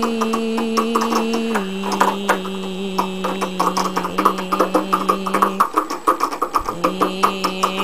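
A steady hummed vocal drone held on one pitch. It steps down slightly about a second and a half in, breaks off for about a second near the end, then resumes. Under it runs rapid rattling clicking, several a second, from a hand flicking a metal lever door handle.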